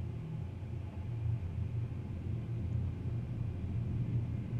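Low, steady rumble of a twin-engine widebody jet airliner rolling out on the runway after touchdown, heard from a distance.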